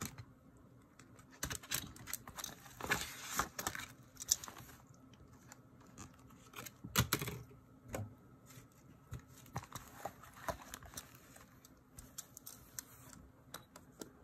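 Handling of a Moterm A6 Luxe leather ring planner: scattered clicks, taps and rustles from the pebbled leather cover, paper inserts and metal rings, with louder bunches of clicks about three seconds in and about seven seconds in.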